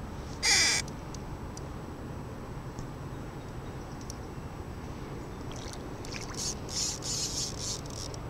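Water splashing in a run of short, irregular bursts near the end as a hooked striped bass thrashes at the surface by the fly line, over steady outdoor background noise; a single short, loud hiss-like burst comes about half a second in.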